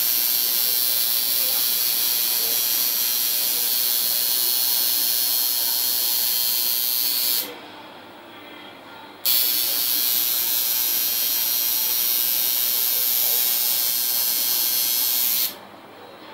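Tattoo machine buzzing steadily as it works ink into the skin, cutting out twice for a second or two as it is paused.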